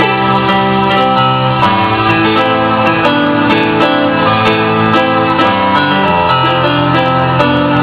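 Electronic keyboard being played with both hands: instrumental music with low notes held under a melody that moves above them.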